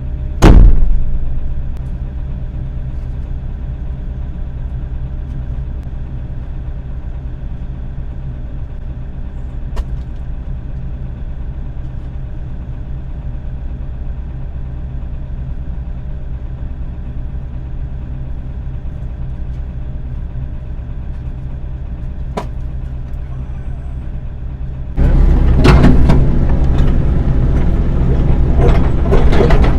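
Diesel engine of a piece of demolition heavy equipment running steadily, with one loud bang about half a second in, as of a concrete chunk hitting the ground. Near the end the engine grows louder, with dense clanking and scraping of metal and broken concrete.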